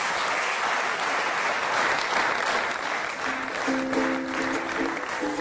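Studio audience applauding. A little past three seconds in, a guitar starts playing plucked notes under the clapping.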